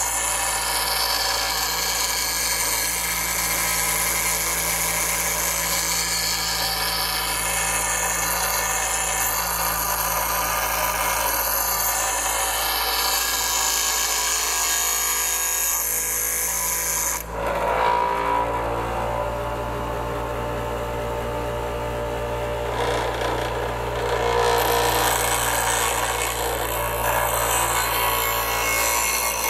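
Bench grinder running with a steel knife blade pressed against its wheel: a steady motor hum and whine under the hiss of metal being ground. A little over halfway through, the grinding briefly lets up, then carries on with less hiss and a more ringing tone.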